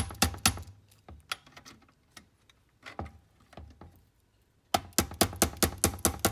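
Small hammer tapping a gear onto the focus motor shaft of a Kodak carousel slide projector, striking a tool held on the gear: a quick run of light taps at the start, a few scattered taps, then another rapid run of about nine taps near the end.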